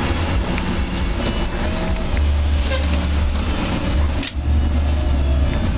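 Bus engine drone and road noise heard from inside the cabin of a moving bus, steady and low, with rattling. The sound drops out briefly a little after four seconds in, then picks up again.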